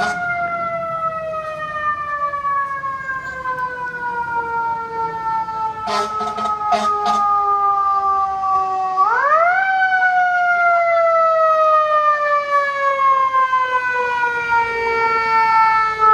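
Fire engine's mechanical siren winding slowly down in pitch, then spun back up sharply about nine seconds in and coasting down again, growing louder as the truck approaches. Three short air-horn blasts sound about six seconds in.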